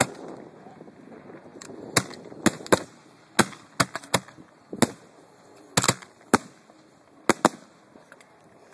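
Display fireworks going off at close range: about a dozen sharp bangs at irregular intervals, some in quick pairs, starting about two seconds in.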